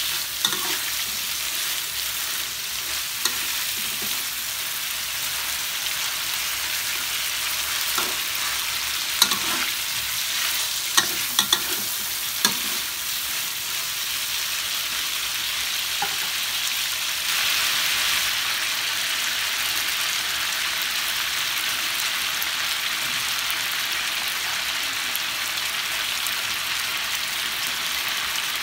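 Duck pieces frying in a wok with a steady sizzle. A metal spatula stirs them, its sharp clicks and scrapes against the pan coming mostly in the first half.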